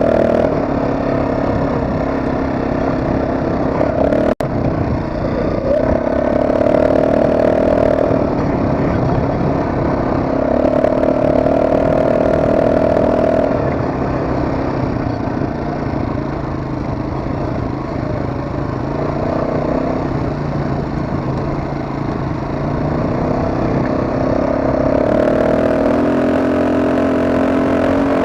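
ATV engine running through a ride, its pitch shifting up and down with the throttle. The sound drops out for an instant about four seconds in.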